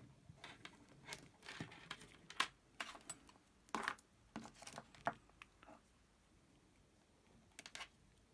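Irregular light clicks and rustles of hands handling alligator-clip leads and a cylindrical battery cell, busiest over the first five or six seconds, then a short cluster of clicks near the end.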